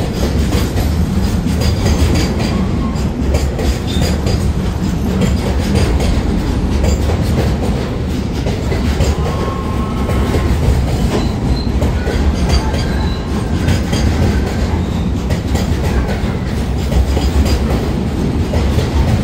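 Freight train of container wagons passing close at speed: a loud, steady rumble with wheels clattering over the rail joints, and brief squealing tones from the wheels around ten and twelve seconds in.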